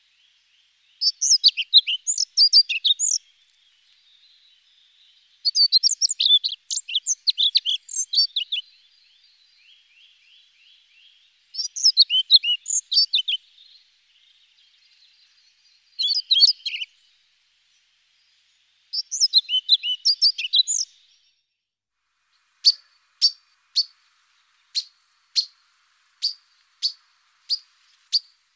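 European pied flycatcher singing: five short, fast phrases of one to three seconds, each followed by a pause, a song very like a common redstart's but without the redstart's characteristic opening. Toward the end the song gives way to a run of short, sharp single notes about one a second.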